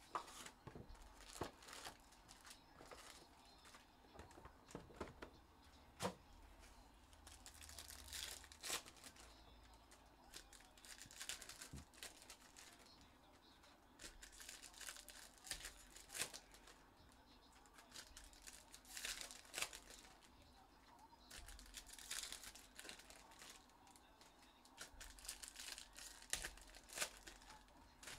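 Faint crinkling and tearing of foil wrappers as Panini Prizm Baseball hobby packs are opened, with rustling and small clicks coming in short clusters every few seconds.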